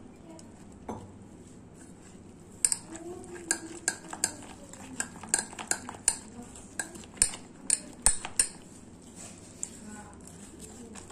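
Thick gram-flour batter being mixed with water in a stainless steel bowl, with sharp, irregular clinks against the bowl, about two a second, starting about three seconds in and thinning out near the end.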